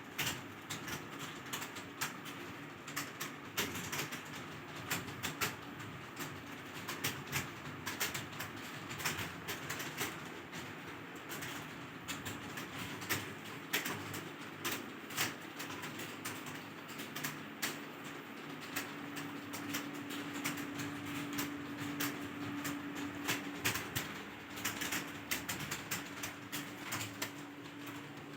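Computer keyboard being typed on: irregular keystroke clicks, a few a second, without a pause.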